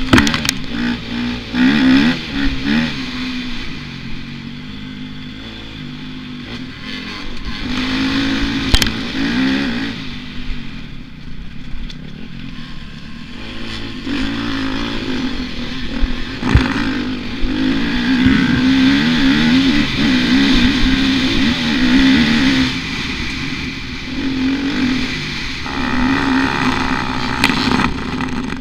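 Motocross bike engine revving up and falling back again and again as it is ridden hard around a dirt track, with a few sharp knocks along the way.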